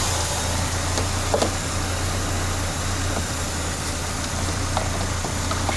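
Peugeot 505 ST's petrol engine idling steadily on a freshly refitted carburettor that has not been tuned, with a few faint ticks.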